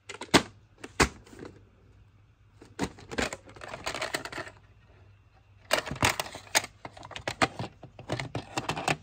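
A hard plastic VHS clamshell case being handled and the videocassette taken out and turned over: two sharp plastic clicks in the first second, then two longer runs of clicking and rattling of plastic.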